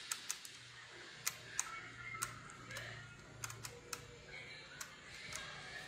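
About a dozen light, sharp clicks and taps, spaced irregularly, over a faint quiet background.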